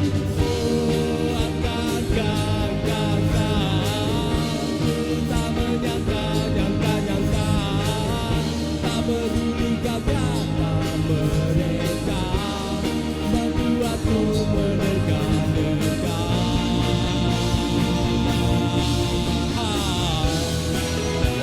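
A rock band playing a song live, at a full, steady level throughout.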